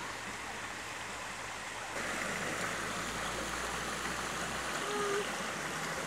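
Shallow stream of water trickling and splashing over rocks, a steady rushing that gets a little louder about two seconds in.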